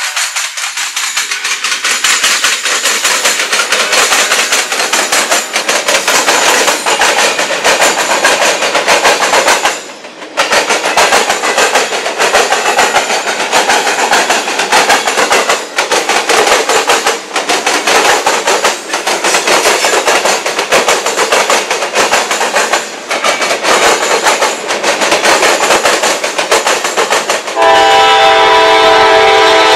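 Freight train passing close by: diesel locomotives and then loaded freight cars, steel wheels clattering rapidly and continuously over the rails. Near the end this gives way to a locomotive's air horn sounding one loud, steady chord.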